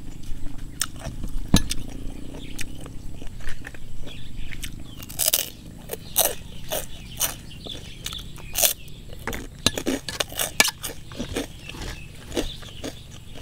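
Close-up chewing with many sharp, irregular crunches of crispy pork rind.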